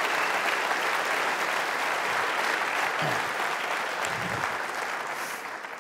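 Audience applauding in a hall, a steady clatter of many hands clapping that gradually dies away near the end.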